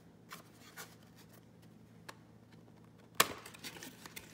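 Hands handling a small paperboard product box: a few faint taps, then a sharp click a little past three seconds in as the box's tuck-in lid flap is pulled free, followed by several lighter clicks and crinkles of the card.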